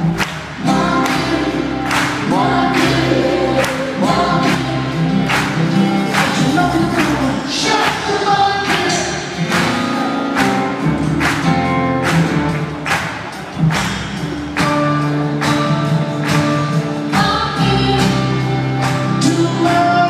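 A rock band playing live in a large arena: a steady drum beat of about two hits a second under sung vocals with backing voices.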